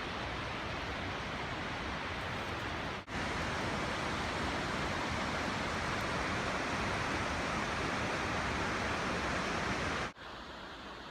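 Rushing water of a mountain creek running high, a steady even rush. It drops out for an instant about three seconds in and again near the end, and the stretch between is a little louder.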